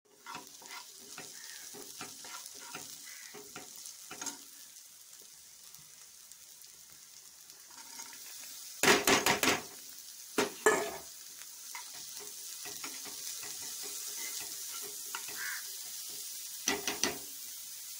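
Chopped onions and vegetables sizzling gently in oil in a pan while being stirred with a metal spoon; the spoon scrapes loudly across the pan a few times in the second half.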